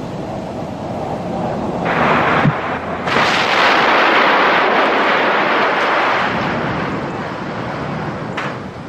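The old stone arch bridge collapsing into the river: a long rushing crash of falling masonry and water that swells about two seconds in, peaks and slowly dies away, with a single sharp crack near the end.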